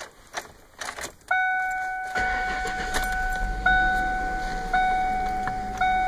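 Keys jangling in the ignition of a 1995 Ford Mustang. About a second in, a dashboard warning chime begins and repeats about once a second. Just after that, the 3.8-litre V6 starts cold and runs at an idle that has not yet settled.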